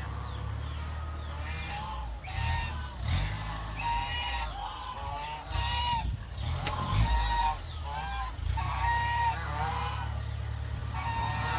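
Geese honking over and over in short calls, over the steady low running of an idling tractor engine.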